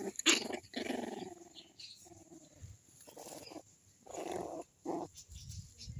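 Dogs growling in play as a puppy wrestles with a larger dog: several short growly bursts, with a lower rumble near the end.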